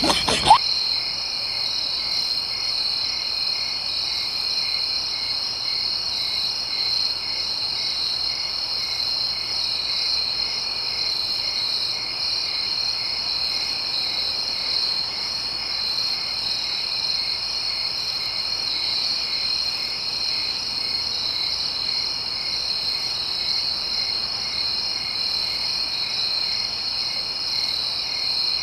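Night chorus of crickets and frogs: a steady high trilling with a regular pulsing note repeating about twice a second.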